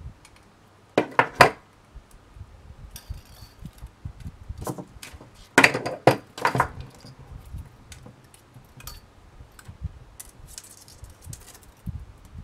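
Jewellery pliers and fine wire being handled on a work mat while wire is wrapped around a wirework frame. A quick run of three metallic clicks comes about a second in, and a louder cluster of clicks and clatters around six seconds as the pliers are put down. Lighter ticks and rustles follow as the fine wire is pulled through and wrapped.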